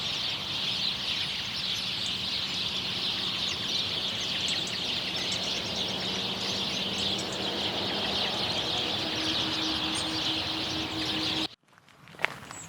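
A dense, continuous chorus of birds chattering. It cuts off abruptly about eleven and a half seconds in, and single footsteps follow.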